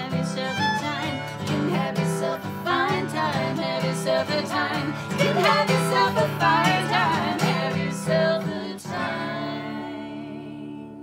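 Bluegrass fiddle and acoustic guitar with women singing in harmony, closing a song. A last guitar strum about nine seconds in rings out and fades away.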